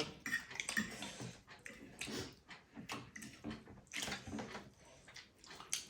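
Wet mouth sounds of people chewing and slurping food: a scatter of irregular small smacks and clicks.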